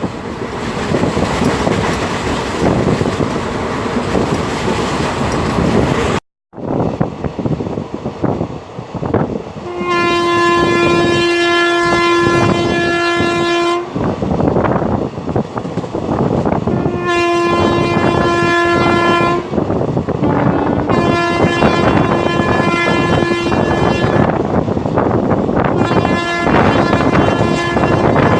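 Electric locomotive horn (WAP-4) sounding in four long blasts, the longest about four seconds, with a shorter lower-pitched toot between the second and third. Under them runs the steady rush and rail clatter of the express at high speed, which is all that is heard for the first few seconds, before a brief gap.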